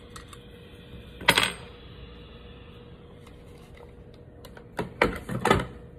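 Small metal tools clinking on a jeweller's workbench as they are set down: one sharp clatter about a second in, then a run of several clatters near the end.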